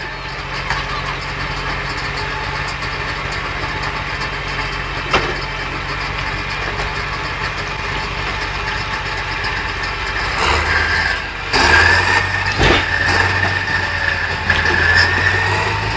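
Heavy diesel engine of a mining haul truck running steadily at idle, with a single click about five seconds in. From about ten seconds in it grows louder and a steady high whine joins it.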